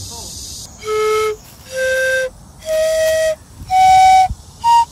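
A flute-like wind instrument plays a slow rising run of held notes, about one a second: four long notes climbing in pitch, then a short, higher one near the end.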